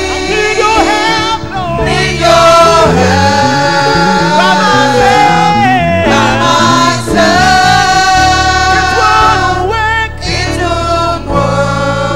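Church choir singing a gospel song with keyboard accompaniment.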